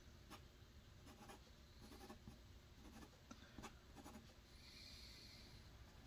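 Faint scratching of a drawing tool on a drawing surface: a series of short strokes, with a soft hiss a little past the middle.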